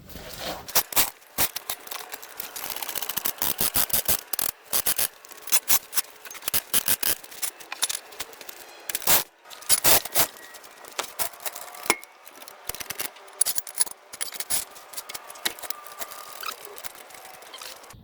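Irregular clicking, clattering and scraping of metal tools and parts being handled, many sharp knocks in quick clusters.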